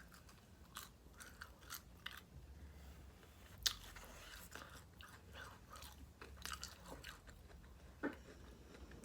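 A person chewing and biting food: irregular small crunches and mouth clicks, with a sharper bite about three and a half seconds in and another about eight seconds in.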